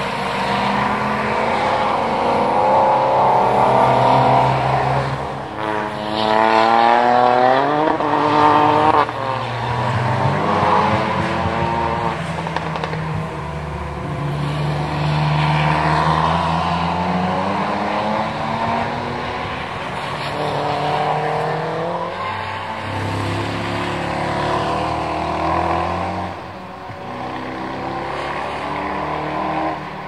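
Track cars' engines revving hard as they climb past one after another, the engine notes rising in pitch, dropping back at each gear change and rising again.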